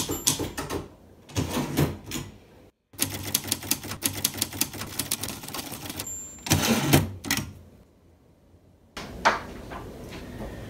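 Manual typewriter typing: rapid runs of keystrokes as the typebars strike the paper. The typing pauses briefly about eight seconds in, then resumes.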